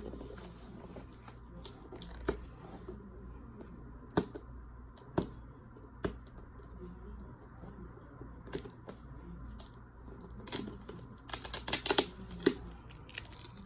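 Headphone box packaging being handled and opened: scattered sharp clicks and taps, then a quick flurry of clicks and rustles near the end.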